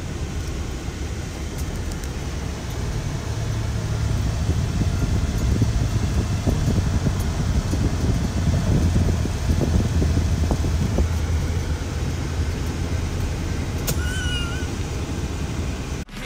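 Steady low rumble of road and engine noise inside a moving car's cabin. Near the end, a short high wavering squeak.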